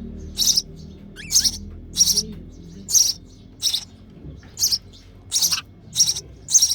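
Sparrow chick in the nest giving hungry begging chirps: short, high, sharp notes repeated steadily, about nine in a row.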